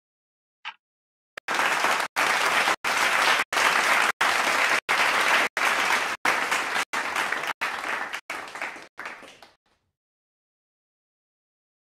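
A single tick of a quiz countdown timer, then a recorded applause sound effect that starts about a second and a half in and fades out after about eight seconds, cut by short regular gaps. The applause marks the correct answer being revealed.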